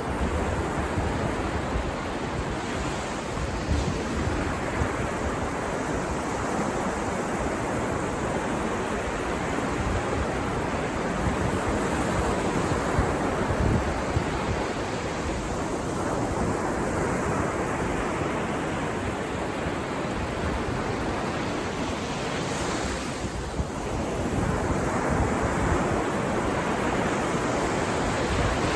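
Ocean surf breaking and washing on a beach, a steady rushing noise that swells and eases with the waves, with some wind buffeting the microphone.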